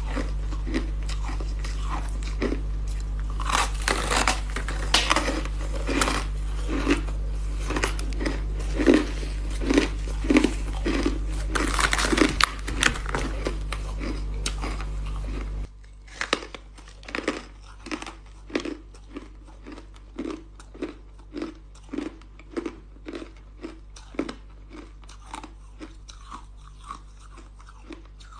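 Ice being bitten and chewed close to the microphone: crisp, crackly crunches over a steady low hum. About halfway through the hum drops away and the chewing settles into a regular rhythm of quieter crunches, about every two-thirds of a second.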